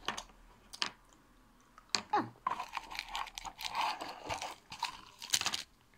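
Toxic Waste candy wrapper crinkling and rustling as it is handled and opened, mostly in the second half.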